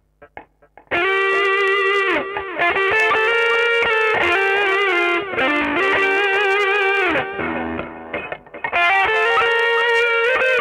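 Electric guitar played through a Mooer GE100 multi-effects pedal on its "Lead Hamonika" preset: a sustained lead melody of held notes with vibrato and bends. A few faint ticks come first, the notes start about a second in, and they drop off briefly near the end before resuming.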